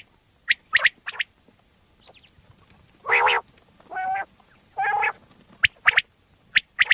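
Common quail calling: short, sharp, high notes in quick pairs and threes, with three longer, lower-pitched calls about a second apart in the middle.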